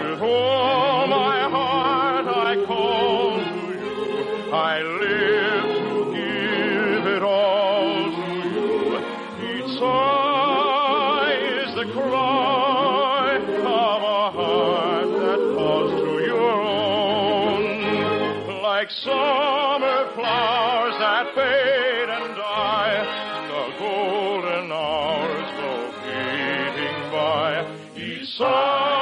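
A song from an operetta: a singer with strong vibrato over an orchestra, heard on an old radio recording with little treble.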